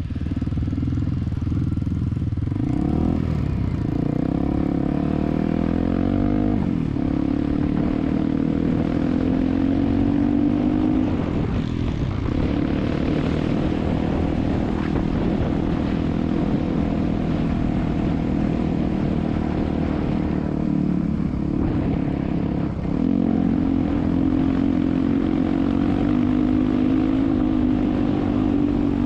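Motorcycle engine running under way, its note holding steady for long stretches and dipping briefly several times as the throttle is eased and picked up again.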